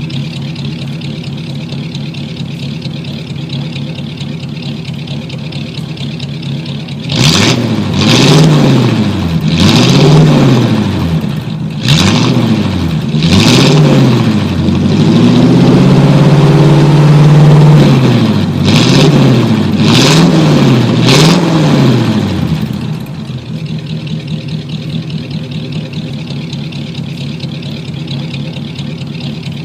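A 1949 car engine idling steadily, then revved in a series of quick blips with one longer held rev in the middle, before dropping back to idle.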